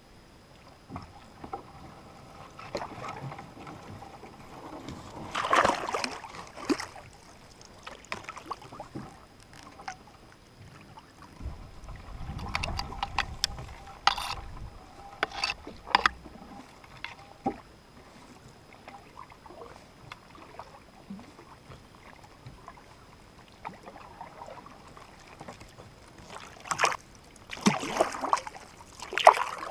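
Canoe paddle strokes in calm water: irregular splashes and drips as the paddle dips and lifts, with a low rumble of wind on the microphone about twelve seconds in.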